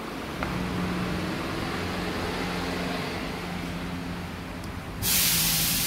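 A steady mechanical hum with a low held tone, joined about five seconds in by a loud, even hiss that starts suddenly.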